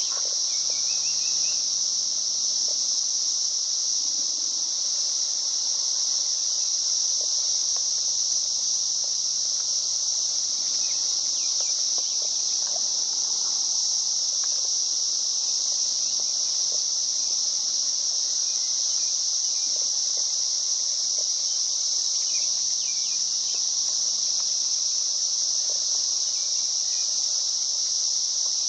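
Dense, steady insect chorus, high-pitched and unbroken, without pauses or changes.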